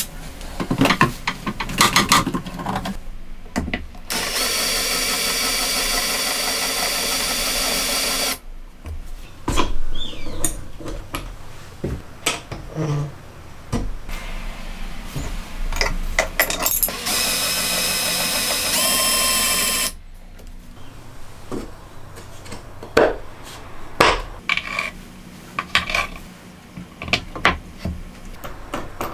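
A Makita trim router's motor runs twice, a few seconds each time, with a steady high whine, and cuts off suddenly each time. Between the runs there are short clicks and knocks of parts being handled on the router table.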